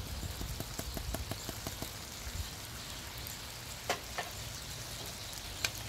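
Ground beef, onions and corn sizzling and crackling in a cast iron skillet on a propane camp stove, with a fast run of small ticks in the first two seconds and a few sharper clicks later.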